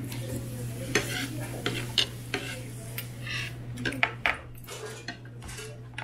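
Metal spoon clinking and scraping against a plate of kimchi fried rice, with a few sharp clinks about 1, 2 and 4 seconds in, over a steady low hum.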